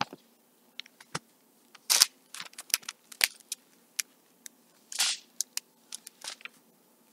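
Bible pages being turned and handled: a string of crisp paper rustles and small clicks, with a louder swish of a page about five seconds in.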